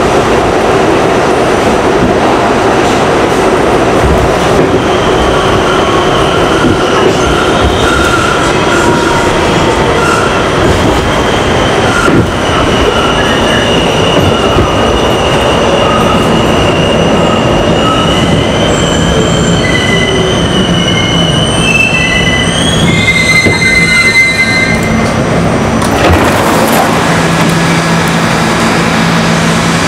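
R68 subway car running through the tunnel with a loud steady rumble and a high-pitched squeal from the wheels. The squeal rises in pitch shortly before the train slows into a station near the end, where the noise gives way to a steadier low hum.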